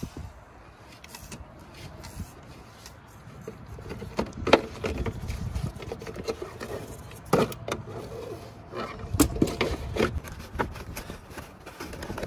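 Scattered clicks, knocks and scrapes of a strap wrench being worked around the metal canister of a spin-on hydraulic filter on a mini excavator, with the sharpest knocks about four and a half, seven and a half, and nine to ten seconds in.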